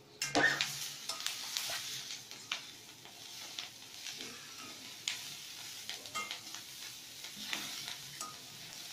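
Vegetables stir-frying in butter in a kadai: a steady sizzle, with a metal spatula scraping and clicking against the pan every second or so.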